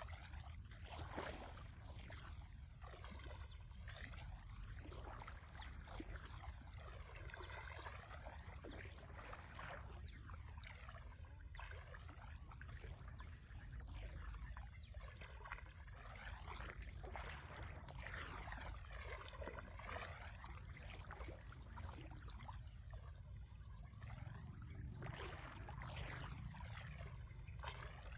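Shallow water sloshing and swishing around a person's legs as she wades slowly through it, in a faint, even wash, over a low steady rumble.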